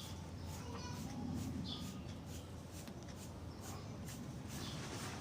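Small cage bird giving a few short, high chirps among a run of light clicks and scratching, with a low hum underneath.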